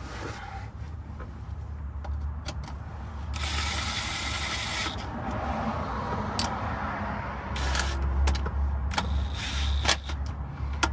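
A cordless power tool whirring in two short runs, about three and a half seconds in and again near eight seconds, as it drives in the 14 mm transmission mount bolts, with small metal clicks between.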